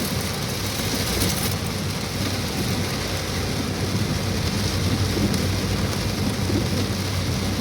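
Heavy rain falling steadily, a continuous hiss, with a low steady hum underneath.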